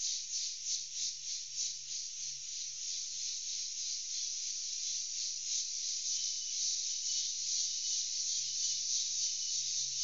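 Insects buzzing in a steady high chorus, pulsing about four times a second at first and then evening out, with a thinner high tone joining about halfway through.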